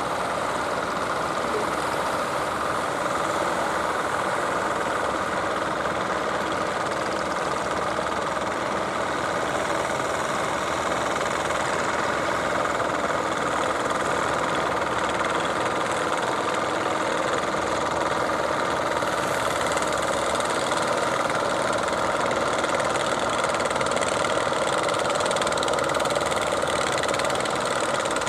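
Fishing boat engine running steadily at a constant speed.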